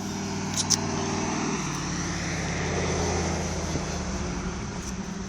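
A passing engine's drone, growing louder to its peak about three seconds in and then fading away.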